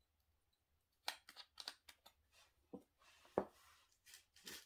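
Faint, scattered clicks and crackles of a small clear plastic storage jar being opened and set down and a plastic zip bag being handled, starting about a second in.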